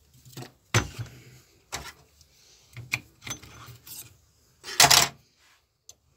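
A handful of sharp metallic clinks and knocks as steel valve-seat countersink cutters and their pilot rod are handled in a wooden case and set against the cylinder head, the loudest knock about five seconds in.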